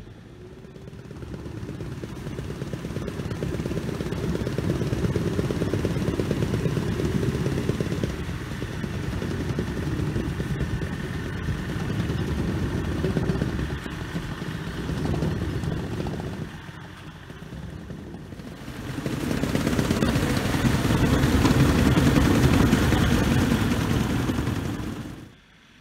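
Truxor T50 amphibious reed cutter's engine running steadily as the machine drives through the canal, its tracks churning the water. The sound drops away briefly about seventeen seconds in, returns louder, and cuts off suddenly just before the end.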